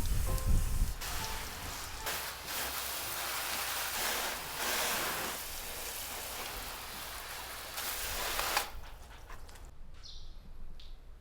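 Water spraying from a hose, swelling and fading in uneven bursts, then cutting off about eight and a half seconds in. A bird chirps twice near the end.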